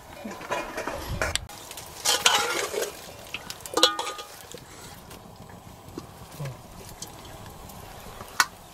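Steel ladle scraping and clinking against a stainless steel pot and plate as meat curry is served onto rice, with one ringing metal clink about four seconds in.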